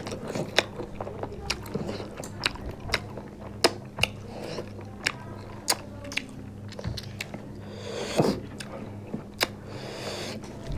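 Close-miked eating sounds from people eating chicken curry and rice with their hands: chewing, lip smacks and irregular sharp mouth clicks, with a louder rustling swish about eight seconds in. A faint steady low hum runs underneath.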